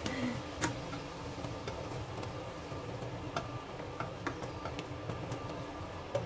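Water boiling in a pan, with scattered light clicks as chopsticks lift blanched okra pods out and tap against the cookware.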